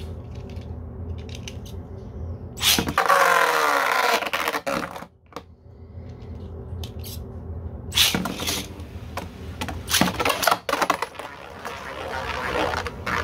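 3D-printed Beyblade spinning tops launched into a stadium: a loud whir about two and a half seconds in, then the tops spin and clatter against each other and the stadium walls with rapid clicks.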